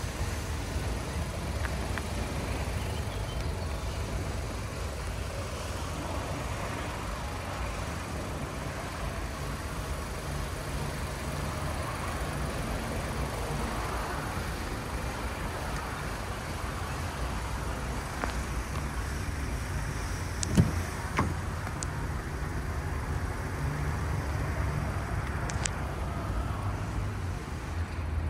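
Steady low rumble of motor-vehicle noise, with two short sharp clicks about twenty seconds in.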